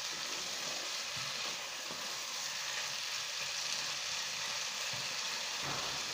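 Flat beans (sim) in coriander paste sizzling steadily in hot oil in a nonstick kadai, stirred with a wooden spatula, with a few faint scrapes. The dish is nearly cooked.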